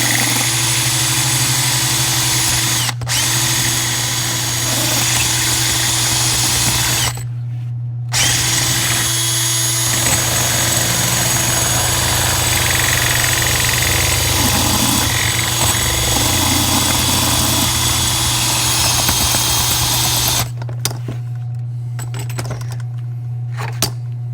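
Power drill with a 3/16-inch bit drilling out a pop rivet, running in long steady stretches with a brief stop about three seconds in and a pause of about a second near seven seconds. It stops near the end, followed by a couple of faint clicks.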